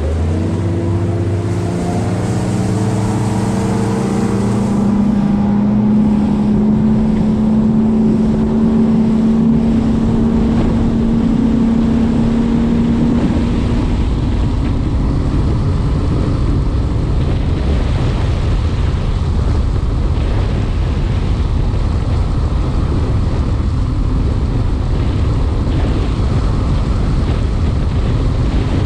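Bass boat's outboard motor picking up speed, its pitch climbing over the first few seconds and then holding steady for a while, with wind rushing over the microphone as the boat runs across the lake.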